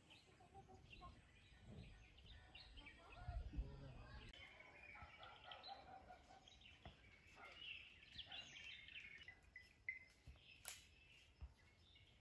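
Near silence with faint small birds chirping in short, scattered calls. There is a low thump about three and a half seconds in and a single sharp click near the end.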